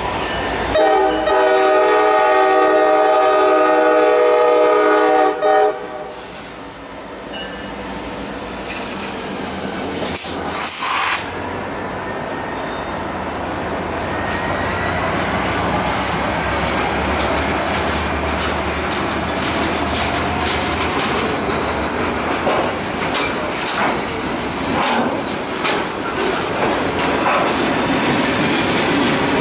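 Freight locomotives passing close: one long horn blast of about five seconds, then a brief hiss. After that the diesel engines of the EMD GP40-2 and GP39-2 rumble past, with a high wheel squeal that slowly rises and then fades, and wheels clicking over rail joints near the end.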